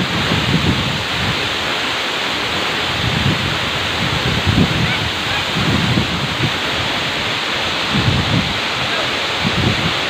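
Waterfall, a steady rush of falling water heard close up in its spray, with irregular low gusts of wind buffeting the microphone.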